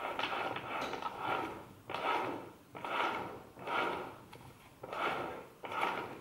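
A removed six-speed manual gearbox from a 2011 VW Touran 1.2, its shaft turned by hand, running with a grinding whirr that swells and fades about once every second. Even at hand speed it is already too loud, which the mechanic takes for a failed main shaft bearing.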